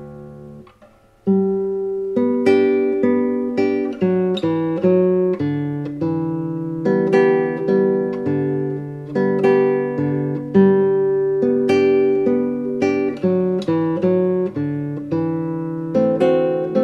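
Background music: an acoustic guitar playing a plucked melody, which drops away briefly about a second in and then starts again.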